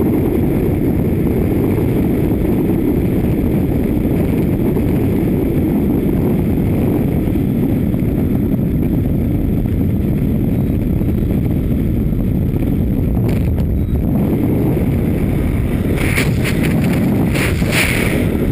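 Freefall wind rushing over an action camera's microphone: a loud, steady low rumble. Near the end come a few brief flapping sounds as the parachute starts to deploy.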